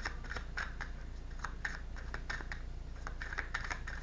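Tarot cards being shuffled by hand: an irregular run of quick, light clicks and slaps, several a second, over a low steady hum.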